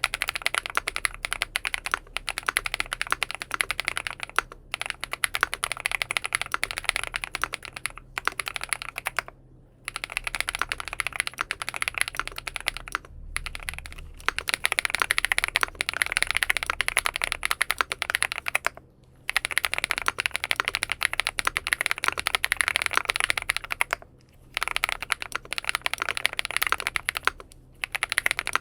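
Fast, continuous typing on a full-aluminium XINMENG M71 mechanical keyboard fitted with BSUN Bunny switches, in runs of rapid key clacks broken by a few short pauses.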